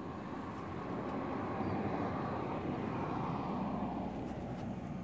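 A vehicle passing by: its engine and road noise swell to a peak about two seconds in, then fade away.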